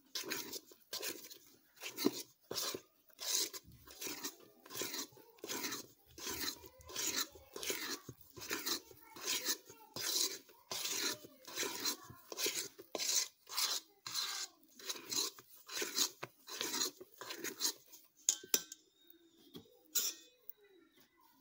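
Cake batter being stirred and folded by hand in a bowl, in steady rhythmic strokes of just under two a second, as flour is worked into the egg-and-sugar batter; the strokes stop a few seconds before the end.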